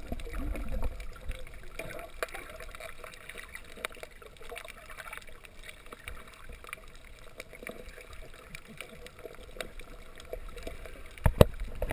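Underwater sound picked up by a submerged action camera over a coral reef: a muffled watery hiss with many scattered small clicks and crackles, some low rumbling water movement in the first second, and a few louder knocks near the end.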